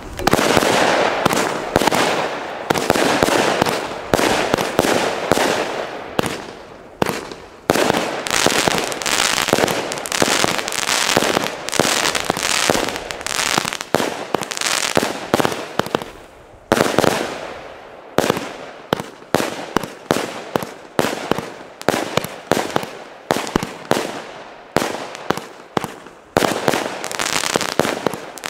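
A 'Professional F3' category-F3 firework battery firing its shots one after another, each launch and burst a sharp bang. The shots come thick and overlapping with crackle at first; after a short lull about halfway through they fall into an even beat of about two a second.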